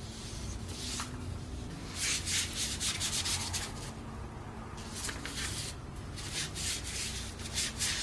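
Chinese painting brush dragged and pressed across paper in broad ink strokes, making a rubbing hiss of bristles on paper. It comes in several runs of strokes: one about two seconds in, a short one near five seconds, and another from about six seconds to the end.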